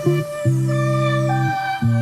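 Background music: sustained instrumental notes changing every half second or so over a held high tone.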